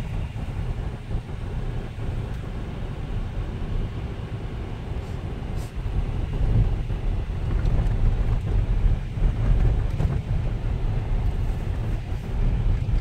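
Jeep Wrangler JK driving slowly on a snowy road, heard from inside the cabin: a steady low rumble of engine and tyres.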